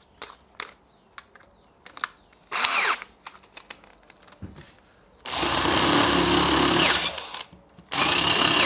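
Cordless drill counterboring screw holes in a softwood batten. Small handling clicks come first, then a brief spin about two and a half seconds in, then a steady whirr of the drill cutting into the wood for about two seconds starting a little after five seconds in, and a second run starting about eight seconds in.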